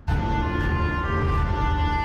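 Dark, tense drama underscore that comes in suddenly: held chords over a low rumble, with a couple of soft swells.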